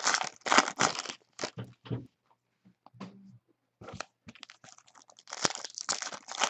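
Foil trading-card pack wrappers crinkling and tearing as packs are ripped open, in irregular bursts with a pause in the middle.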